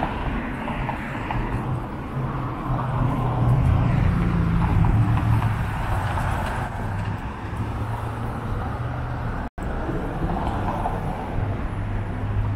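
Street traffic: the rumble of cars, swelling as one passes a few seconds in. The sound cuts out completely for an instant about three quarters of the way through.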